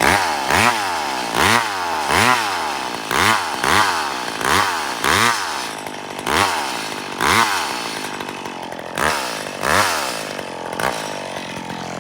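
Chainsaw cutting wood, its engine revving up and dropping back over and over, about once a second, with the revs coming a little further apart near the end. This is the notch in a rotten fir being opened up.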